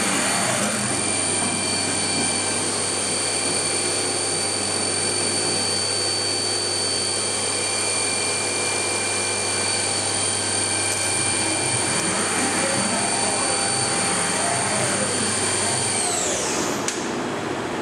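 Cincinnati V-CNC500 vertical machining centre's 11 kW spindle running at speed with no cutting, a steady high whine over a hiss of machine noise. About sixteen seconds in, the whine drops sharply in pitch and fades as the spindle winds down to a stop.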